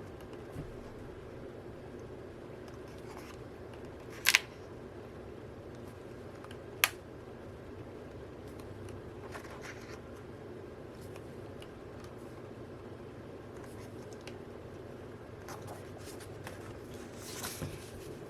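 Quiet handling of an album's paper booklets and cards, soft rustles over a steady low hum, with two sharp clicks about four and seven seconds in.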